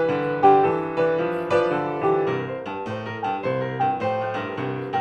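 Solo piano music, notes struck in a flowing pattern of a few per second over sustained bass notes.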